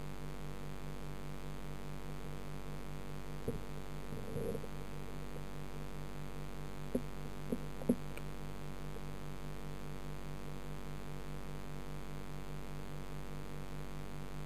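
Steady electrical hum with a pulsing low tone, as picked up by a submerged camera in a tank with a running filter. A few light knocks sound between about four and eight seconds in.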